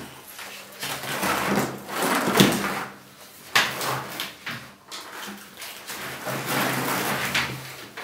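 A PC tower case being turned around by hand: irregular scraping and rubbing noises as it is moved, with one sharp knock about two and a half seconds in.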